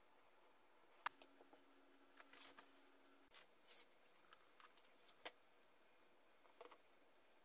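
Quiet handling sounds of small wooden parts and plastic clamps: a few sharp clicks and light taps, the sharpest about a second in, with soft scraping rustles between them.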